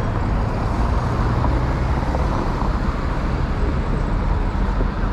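Road traffic on a city street: a steady low rumble of passing cars.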